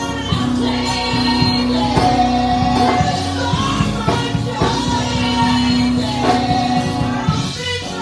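Live gospel music: a band playing with a steady beat while singers hold long notes.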